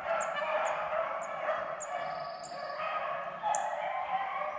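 A pack of beagles baying while running a rabbit, their voices blending into one continuous chorus. A bird's short, high chirps repeat about every half second over it.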